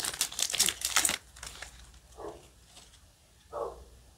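Foil wrapper of a trading-card booster pack crinkling as the cards are pulled out, in rapid crackly bursts for about the first second, then a few softer brief rustles.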